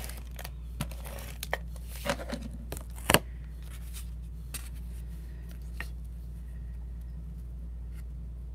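Paper cards being handled on a tabletop: a few short rustles and taps of cardstock over the first three seconds, the loudest a sharp tap just after three seconds, then only a steady low hum.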